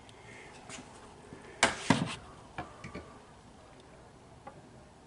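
A few sharp knocks and clicks over a quiet background, the loudest a quick cluster of knocks about a second and a half in, followed by a few lighter clicks.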